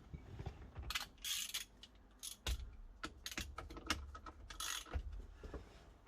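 Ratchet wrench clicking in short, irregular bursts with sharp metallic clicks, tightening the steering-wheel nut onto the steering shaft.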